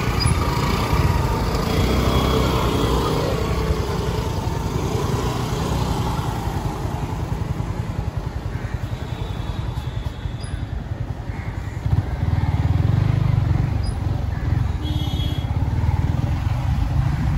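Road traffic: a motorcycle or other motor vehicle engine running with steady rumble and wind-like noise, and a few brief high beeps, one near the end.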